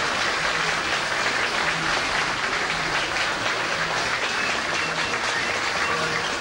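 Steady, dense crowd noise at a busy open-air street market, an even hiss with a clapping-like crackle.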